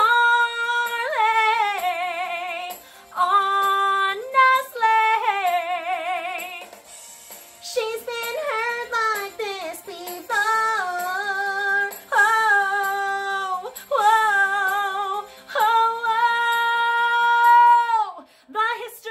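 A woman's voice singing a Broadway show tune in several phrases, with long held notes and wavering vibrato, the longest note held near the end.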